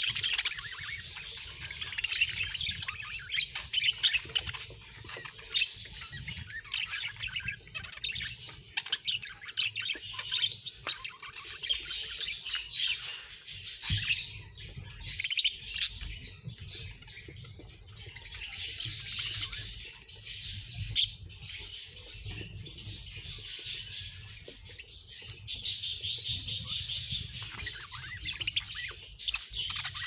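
A flock of budgerigars chattering and warbling continuously, with a few sharp, louder calls around the middle and the chatter thickening near the end.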